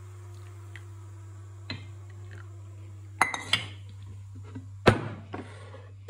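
Metal kitchenware clattering: the aluminium coffee jug of an Atomic stovetop espresso machine is set down on the stove's pan support and a stainless-steel milk jug is handled. It gives a few sharp clinks and knocks, a pair about three seconds in and the loudest near the end.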